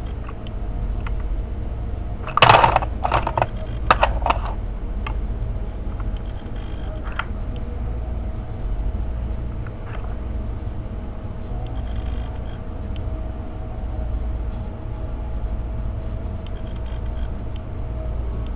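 Magnetic spinning toy, a quick cluster of metallic clicks and clinks about two to four seconds in, then spinning on with a steady low hum and a faint steady tone.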